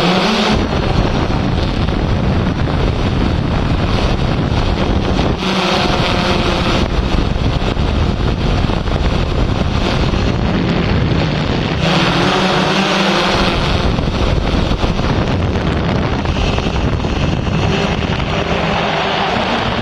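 Drone motors and propellers humming steadily at one pitch, heard through the aircraft's own microphone. Long spells of wind buffeting the microphone cover the hum for several seconds at a time, letting up briefly about six and twelve seconds in and again near the end.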